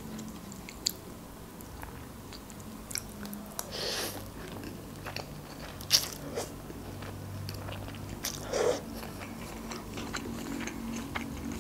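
Close-up eating sounds: instant noodles lifted on a metal fork, slurped and chewed. Scattered small clicks and taps, with a hissy slurp about four seconds in and a sharp click near six seconds.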